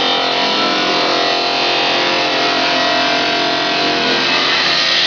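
Vacuum membrane press running steadily: a loud, even hiss over a motor hum with several steady tones.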